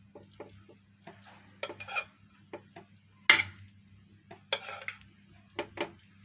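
Metal spoon clinking and scraping against a metal saucepan and a glass baking dish as thick béchamel is scooped out and spread over pasta: a run of separate knocks and scrapes, the loudest about three seconds in.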